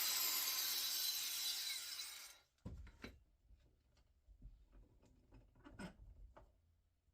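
Angle grinder with a diamond-edge disc cutting through steel parts, stopping suddenly about two and a half seconds in. Then a few light knocks and clicks of metal parts being handled.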